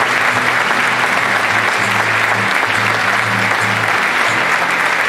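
Theatre audience applauding steadily, with an acoustic guitar playing soft low notes underneath.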